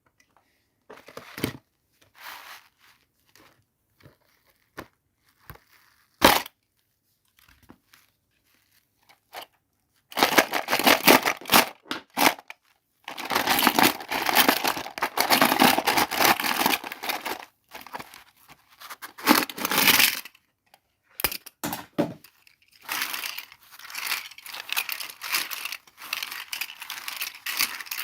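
Doll-set packaging being unboxed by hand: scattered taps and clicks, with one sharp click about six seconds in. After about ten seconds come long stretches of plastic and paper crinkling and tearing.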